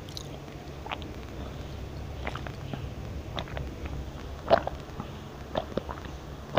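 Someone chewing a crisp cookie close to the microphone: scattered short crunches, the loudest about four and a half seconds in.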